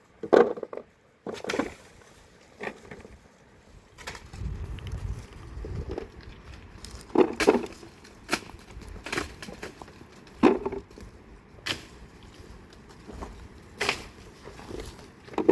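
Irregular sharp knocks and clatters, about a dozen, a second or two apart, with a low rumble between about four and six seconds in.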